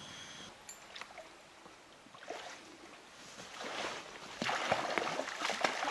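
People wading through a shallow river, the water splashing and sloshing around their legs in irregular bursts that grow louder from about three and a half seconds in. A steady chirping of insects cuts off about half a second in.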